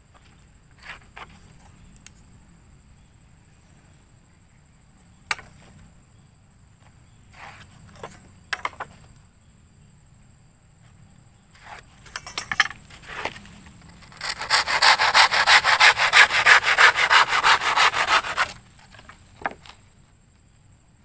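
Scattered light knocks and taps of wooden boards being handled, then a hand saw cutting through a wooden board in quick back-and-forth strokes for about four seconds, stopping shortly before the end.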